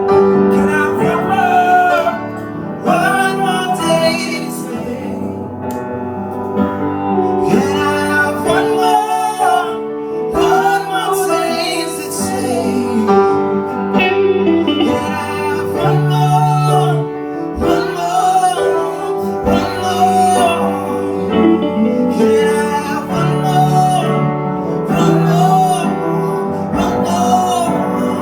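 Live music: singing with a gliding, held melodic line over guitar accompaniment.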